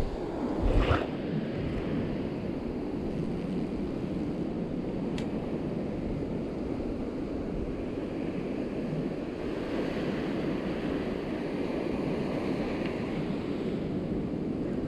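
Ocean surf washing up a sandy beach close by, a steady wash of foam and water, with wind buffeting the microphone. A brief loud thump about a second in.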